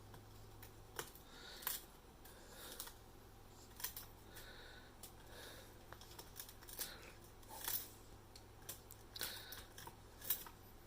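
A parrot's beak chewing and tearing at its perch: irregular small crunches and snaps, often a second or so apart, over a faint steady hum.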